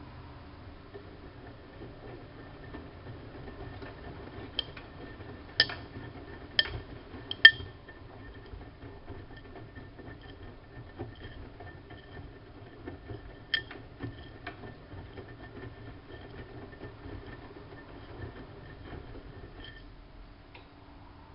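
Siemens Siwamat IQ front-loading washing machine running, with a steady hum and a faint thin high tone. Sharp ringing clicks cut through it: three about a second apart a few seconds in, and two more about halfway through.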